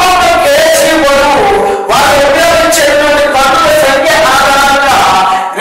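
A man's voice, loud, in long drawn-out sing-song phrases that sound more like chanting than ordinary talk.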